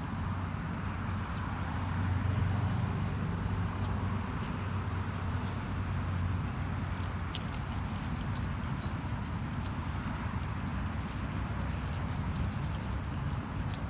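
Dog collar tags jingling in quick light clicks from about halfway in, over a steady low rumble.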